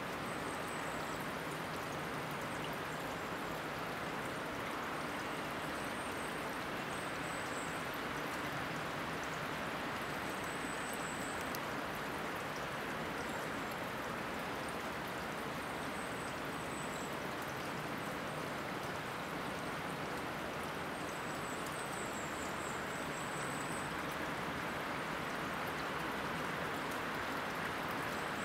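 Steady outdoor forest ambience: an even rushing noise with faint, thin high-pitched chirps that come and go every few seconds.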